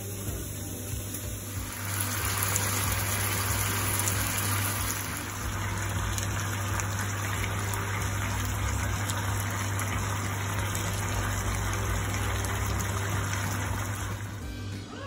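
Beef mince and pepper strips sizzling in a frying pan. The sizzle grows louder about two seconds in and then holds steady over a low hum.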